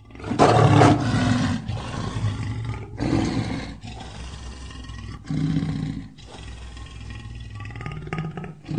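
Tiger roaring and growling: a loud roar about half a second in, then shorter deep roars every two to three seconds, with a low rumbling growl between them.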